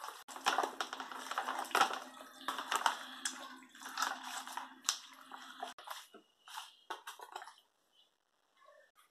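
Hands squishing and rubbing raw chicken pieces in a plastic tub, working seasoning into the meat: irregular wet squelches, scrapes and small knocks that stop about six seconds in.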